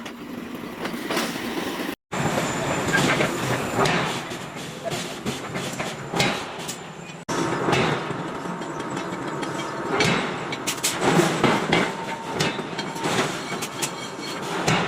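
Heavy forge-shop machinery running with irregular metal clanking and rattling. The sound cuts off abruptly twice, about two seconds in and again past the seven-second mark.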